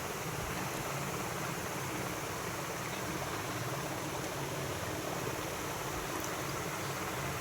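A steady, even hiss of background noise that does not change.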